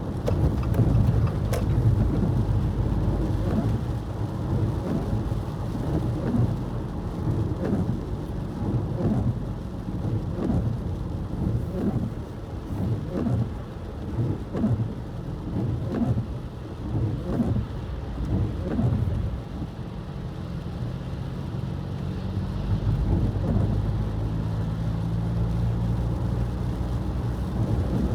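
A car driving in wet snow and rain: a low rumble from the road and tyres, with many irregular taps of rain and sleet hitting the car. Near the end this settles into a steadier low vehicle hum.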